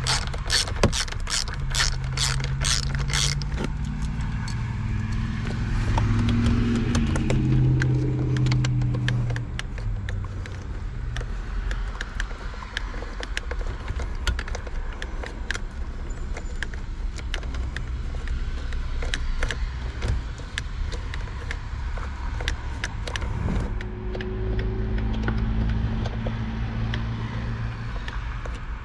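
Hand tools clicking and working at the airbag retaining screws behind a steering wheel, with quick ratchet-like clicks, dense at first and scattered later. A low droning hum comes in twice, once around the first third and again near the end.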